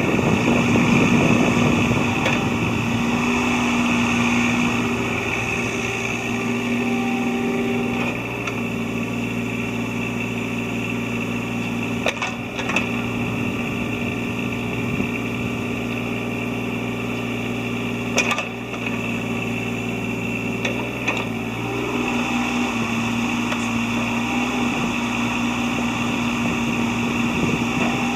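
Yanmar ViO20-3 mini excavator being operated: its diesel engine runs steadily while the hydraulic whine shifts in pitch as the controls are worked. A couple of short knocks come about twelve and eighteen seconds in.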